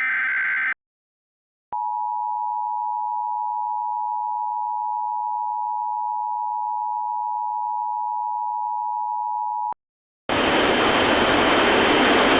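The tail of an Emergency Alert System SAME header data burst, a warbling digital screech. After about a second of silence comes the EAS attention signal: two steady tones near 1 kHz sounding together for about eight seconds. About ten seconds in it gives way to loud static hiss.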